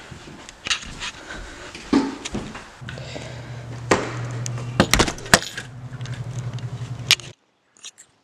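Handheld walking and handling noise with sharp clicks and knocks as a lever door knob is gripped and turned and the door worked, over a steady low hum that comes in about three seconds in. The sound cuts off suddenly about a second before the end.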